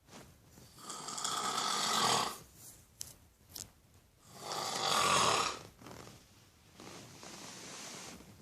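Snoring: two long, loud snores about three and a half seconds apart, then a softer, quieter breath near the end.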